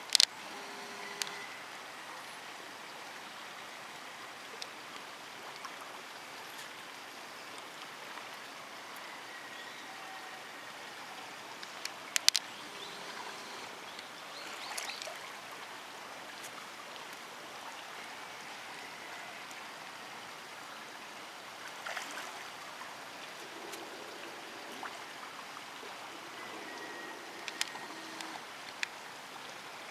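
Steady running river water, broken by a few short sharp splashes as carp break the surface to take floating bread. The loudest is a quick double splash about twelve seconds in, with more near the end.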